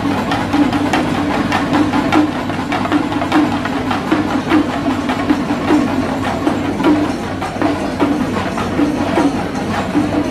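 Festival percussion ensemble drumming fast, dense strokes at an even loudness, over a steady low hum.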